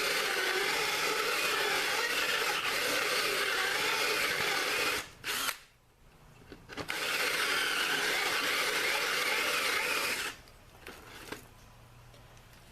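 Power drill boring a countersink recess into the middle of a wooden seat board: one long run of about five seconds, a brief blip, then a second run of about three and a half seconds before it stops.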